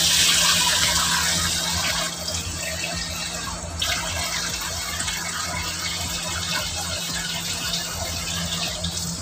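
Water poured from a bowl into a hot frying pan of shredded skipjack tuna and spices, hissing loudly as it hits and then settling to a steady sizzle and simmer after about two seconds. The water is added so the seasoning soaks in. There is a short click a little under four seconds in.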